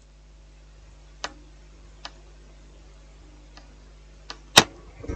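A few small, sharp clicks from handling at the repair bench, with the loudest one near the end, over a faint steady low hum.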